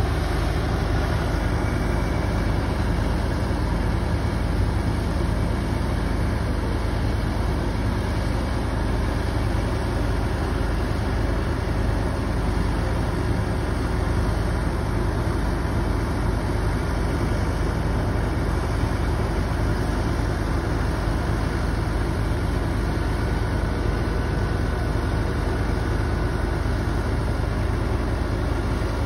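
An engine running steadily at a constant speed, a low hum that does not change.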